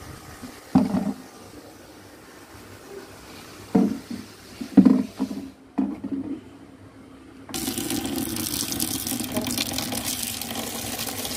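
A stream of water pouring into a plastic tub with a plastic mug in it, a steady rush that starts about two-thirds of the way through. Earlier there are a few brief, loud sounds.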